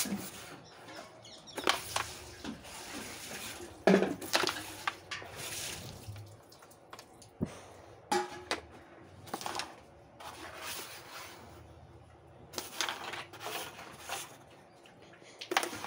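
Carrom striker and wooden coins clacking on a carrom board as shots are played: a string of sharp clicks and knocks spaced irregularly, the loudest about four seconds in.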